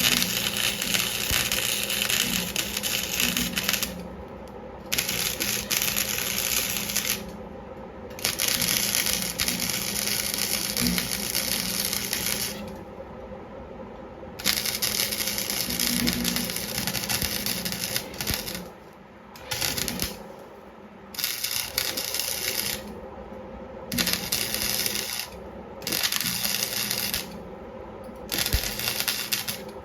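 Welder arc crackling and sizzling in about nine bursts, long runs in the first half and shorter stitch-like bursts near the end, as a patch is welded onto thin, rusted sheet steel of a snowmobile frame. A faint steady hum runs underneath.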